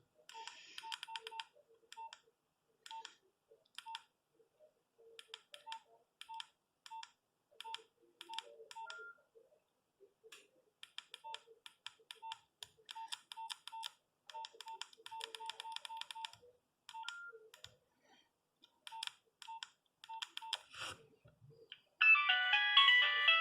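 Nokia 3510 mobile phone keypad beeping as its keys are pressed, short single beeps in irregular quick runs. Near the end, a loud polyphonic ringtone starts playing on the phone.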